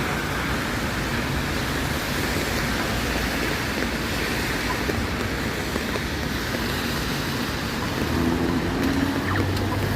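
Steady street noise of passing traffic, a continuous hiss, with a vehicle's engine hum coming in about eight seconds in.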